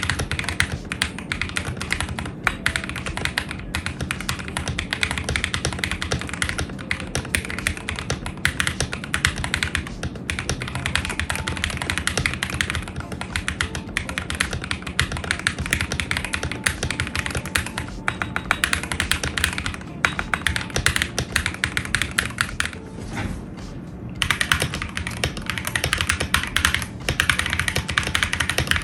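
Continuous fast typing on a mechanical keyboard with Akko linear switches: a dense stream of keystroke clacks, with a brief pause about two-thirds of the way through.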